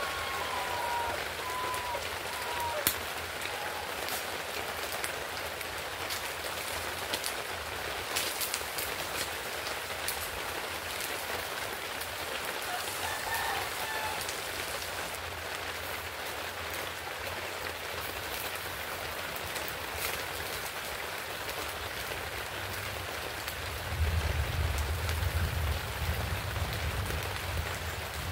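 Fish frying in a wok over a wood fire, a steady sizzle, with the spatula scraping and clicking against the pan now and then. A low rumble comes in about 24 seconds in.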